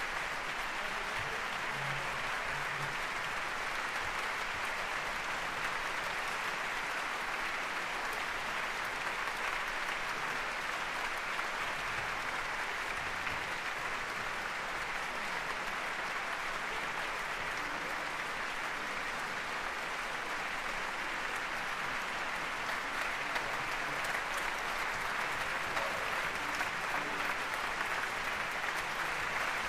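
Audience and orchestra musicians applauding: dense, steady clapping that grows a little louder near the end.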